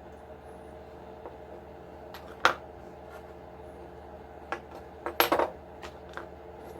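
Small metal parts clinking and tapping as they are handled and set down on a workbench, with one sharp click about two and a half seconds in and a quick cluster of clinks near five seconds, over a steady low hum.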